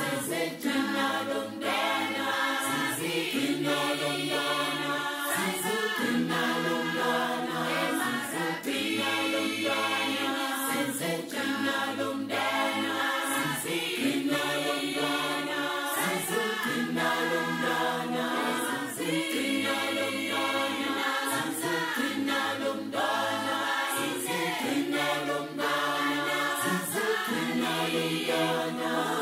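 Choir singing in harmony, as background music, with held chords that change every second or two.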